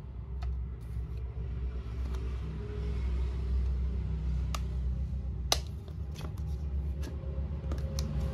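Hard plastic wet-wipe box being handled: scattered clicks and taps from its lid and body, the sharpest about five and a half seconds in, over a steady low rumble.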